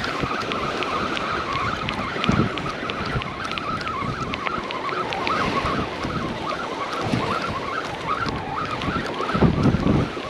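Fishing reel being cranked to bring in a hooked whiting, with a fast run of even clicks over a wavering whine. Wind buffets the microphone and surf washes behind.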